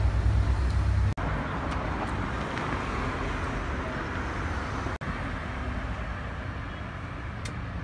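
Steady street traffic noise with a deep low rumble for about the first second. The sound drops out briefly twice, at about one second and five seconds in.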